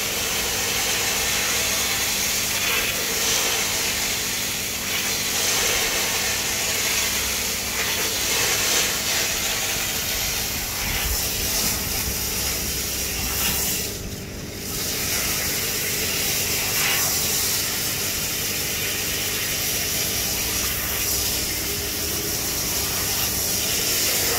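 Steady hiss of running water while dirty aquarium filter cotton is rinsed, over a steady low hum. The water sound dips briefly about fourteen seconds in.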